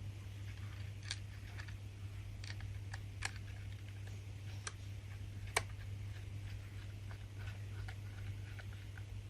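Scattered small clicks and taps of a screwdriver and small screws being fitted into a laptop hard-drive bracket to fix an SSD in place, the sharpest click about five and a half seconds in. A steady low hum runs underneath.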